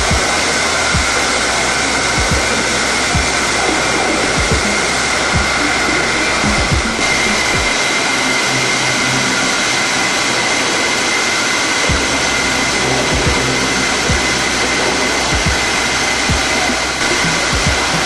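Leadwell LTC-35CLV CNC turning centre running a cut: a loud, steady rushing noise with a constant high whine, and scattered short low thuds.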